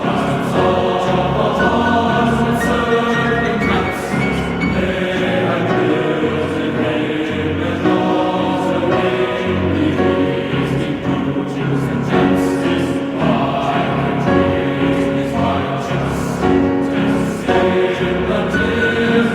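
Choral music: a choir singing long held notes over a low accompaniment.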